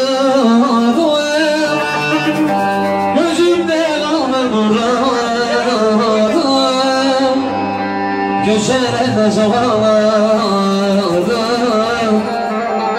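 Live Turkish folk-style music: a man sings long, gliding melodic lines into a microphone over steady sustained electronic keyboard accompaniment.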